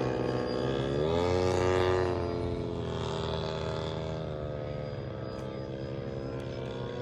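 Radio-controlled model airplane's engine running in flight. Its pitch rises about a second in and falls back about four to five seconds in.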